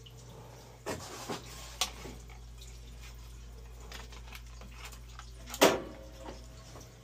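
Water dripping and trickling from a leaking boiler's piping over a steady low hum, with a few knocks about a second in and one louder, sharper knock about five and a half seconds in.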